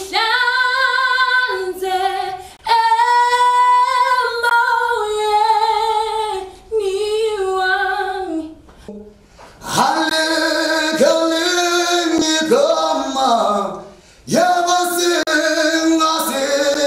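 Unaccompanied solo singing voice performing an audition song: phrases of long held notes with vibrato, broken by short breaths and a longer pause about nine seconds in. The later phrases sit lower and slide down at their ends.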